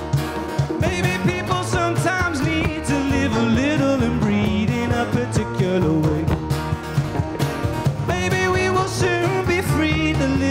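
Live band playing an instrumental break between verses: acoustic guitar, bass guitar and a cajon keeping a steady beat, with a wavering melody line over the top.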